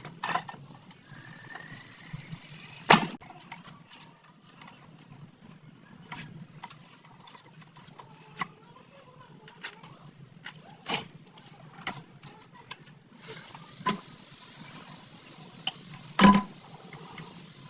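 Hand tools clinking and knocking on a motorcycle shock absorber as it is worked on, with scattered sharp metal knocks over a low hum. A brief rising squeak comes early, a loud knock about three seconds in and another near the end, and a steady hiss sets in about two-thirds of the way through.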